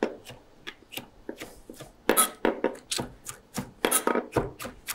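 Chef's knife chopping skinned tomato petals for concasse on a cutting board: a few light taps at first, then from about two seconds in a steady run of sharp knife strokes on the board, about three to four a second.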